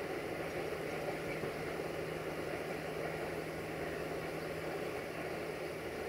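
Freight train's covered wagons rolling past at a distance, wheels on the track making a steady, even rumble, with a faint low hum that stops about five seconds in.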